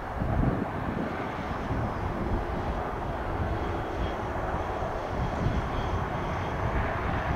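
Jet airliner's engines running with a steady roar, and a faint high turbine whine in the middle stretch.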